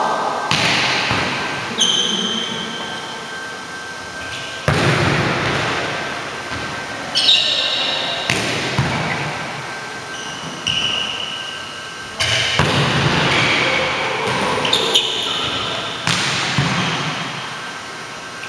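Volleyballs being struck and bouncing on a hardwood gym floor every few seconds, each sharp smack trailing off in a long echo through the large hall. Short high sneaker squeaks on the floor come between the hits.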